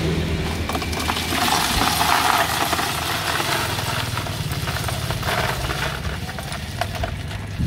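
Ice cubes clattering and rattling as they are poured out of a plastic bag into a plastic tub. The clatter starts about a second in and thins out near the end, over a steady low engine hum.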